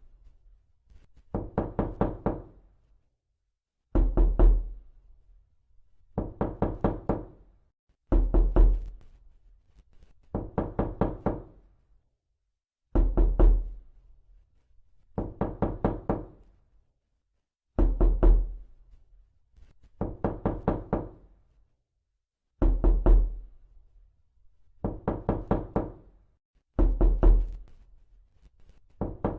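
Knocking in quick bursts of several raps, each burst about a second long. The bursts come in pairs roughly two seconds apart, the first of each pair louder and heavier than the second, and the pattern repeats steadily.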